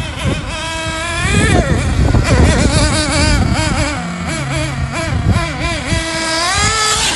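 Nitro RC car's small two-stroke glow engine running and being revved, its pitch rising and falling again and again.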